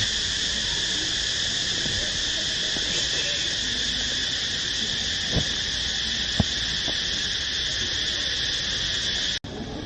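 Steady, unbroken chorus of insects shrilling in the background, with two faint knocks in the middle; it cuts off suddenly near the end.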